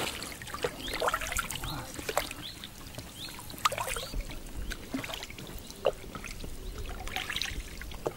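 Wooden paddle dipping and pulling through calm water beside an inflatable rubber boat: small splashes, with drips and trickles running off the blade between strokes.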